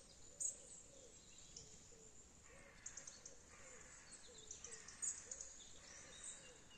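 Faint birdsong over quiet outdoor background noise: scattered high chirps and a soft low call repeating about twice a second.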